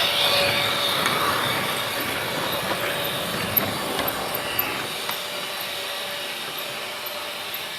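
Freight train running past on the rails, a steady rolling rumble that slowly fades, with a few sharp metallic clanks from the wheels and cars about three to five seconds in.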